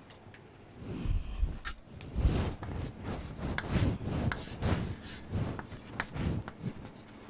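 Irregular rubbing and scraping noises with soft low thumps.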